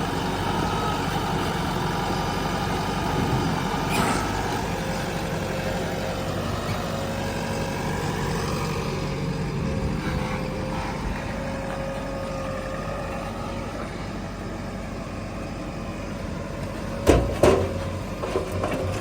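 Diesel engine of a JCB 3DX backhoe loader running steadily at work. A steady whine holds through the middle, and two loud knocks come near the end.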